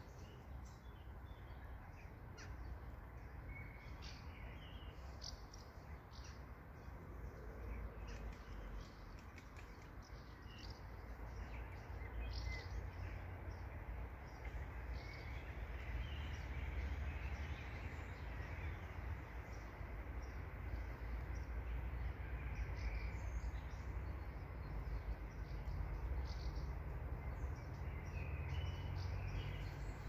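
Outdoor meadow ambience: a low rumble of wind on the microphone, growing louder a little under halfway through, with scattered short bird chirps.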